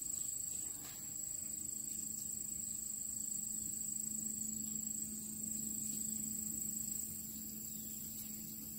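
Steady high-pitched trill of insects calling, typical of crickets or katydids, with a low steady hum joining about a second and a half in.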